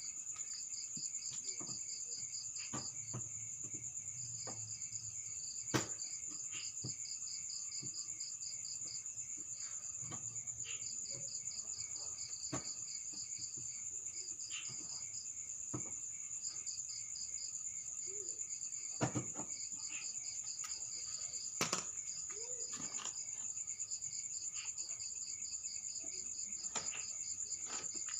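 Crickets chirping in steady pulsed trains over a continuous high insect drone, with occasional sharp clicks or knocks, the loudest about six seconds in and twice near two-thirds of the way through.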